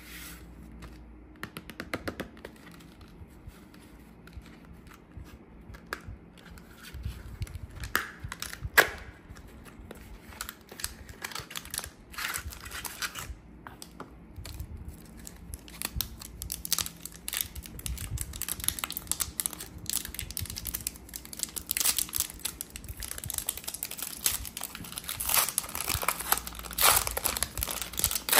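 A chocolate bar's cardboard box and shiny black inner wrapper being handled, crinkling and rustling, and then the wrapper being torn open. The crackling is irregular and grows busier and louder toward the end, with one sharp click about nine seconds in.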